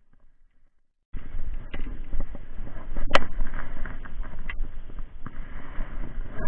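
Rustling and rubbing noise from a body-worn camera brushing against a jacket and tall grass as the wearer walks, starting suddenly about a second in, with a few sharp clicks.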